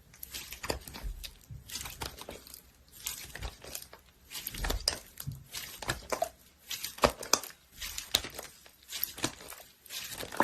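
Slime being squeezed and worked by hand, giving irregular sticky crackles and pops.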